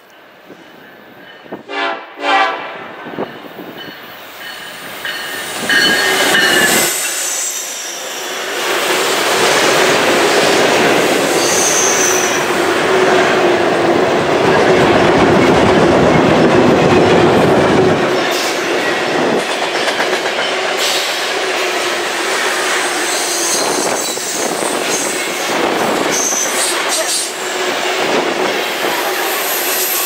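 Freight train sounding short horn blasts as it approaches, then the locomotive rumbling past close by. A long string of open-top freight cars follows, the wheels clicking over rail joints, with brief high wheel squeals.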